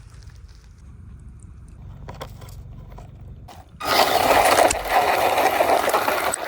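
Radio-controlled car driven hard: a low hum, then about four seconds in a loud, rough scraping noise of the car's motor and tyres starts suddenly and runs on.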